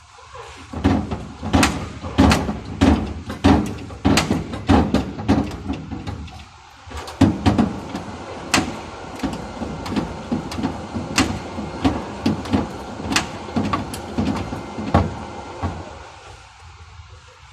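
Irregular series of sharp metallic knocks, about two a second, pausing briefly around six seconds in and stopping near the end: bodywork on a car's dented rear panel.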